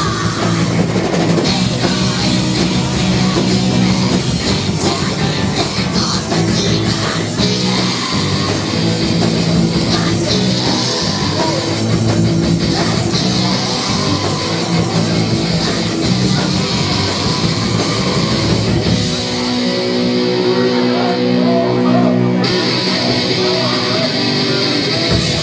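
Rock band playing live, loud distorted electric guitars over a full band. About three-quarters of the way through, the low end and beat drop away, leaving held guitar chords ringing.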